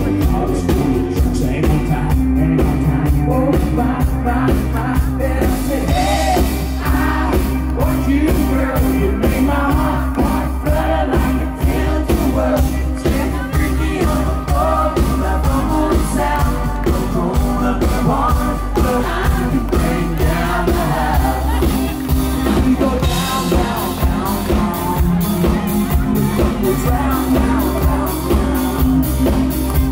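Live country band music with a steady drum beat and a man singing.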